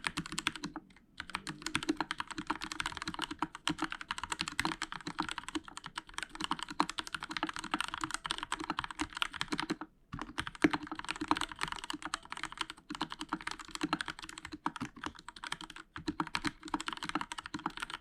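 Fast continuous typing on a Royal Kludge RK61 60% mechanical keyboard with linear Outemu Red switches, foam under the PCB and lubed stabilizers. Dense runs of key clicks and clacks, with brief pauses about a second in and about ten seconds in.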